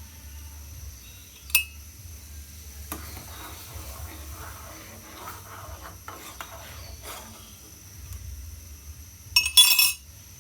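A metal spoon clinking and stirring in a pan of milk tea: one sharp clink, a stretch of soft scraping and tapping, then a louder clatter of metal on metal near the end.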